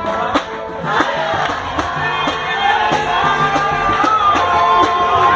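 Live samba music: several voices singing together over a steady beat of drum and hand-percussion strikes.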